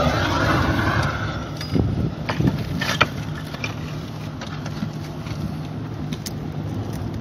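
Open fire in a metal bucket and a roofing gas torch burning with a steady roar. A few sharp clicks or knocks come about two to three seconds in.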